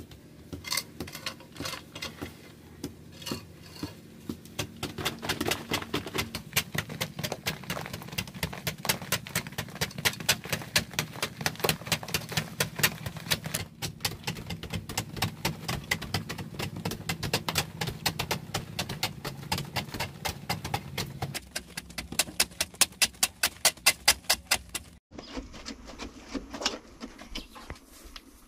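Hand hoes chopping into a hard clay bank: a dense, irregular run of sharp strikes that settles into an even beat of about three strikes a second. Then, after a sudden break, softer scraping and scooping of loose soil.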